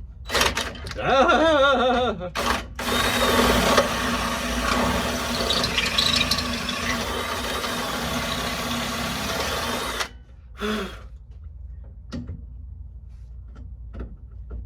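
Handheld power tool hogging out a tight fitting on a rear shock mount. Its motor speeds up and down briefly, then runs steadily under load and stops abruptly about ten seconds in.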